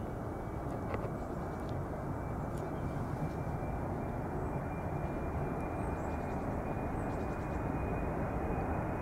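Boeing 747-400 freighter's four jet engines at takeoff thrust during the takeoff roll: a steady distant rumble that grows slowly louder, with a faint steady high whine above it.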